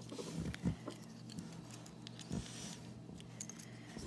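Faint clicks and rubbing of hard plastic toy-ball shell pieces being handled and fitted together, over a low steady hum.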